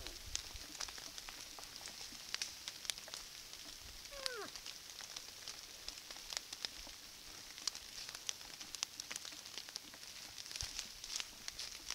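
Trail camera recording of moose moving and browsing in dry leaf litter: scattered crackles and clicks over a steady hiss, with one short call falling in pitch about four seconds in.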